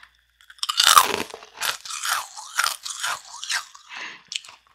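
Crunchy bite into brittle homemade dalgona (Korean honeycomb sugar candy), the loudest crunch about half a second to a second in, followed by a run of crunchy chews about two a second.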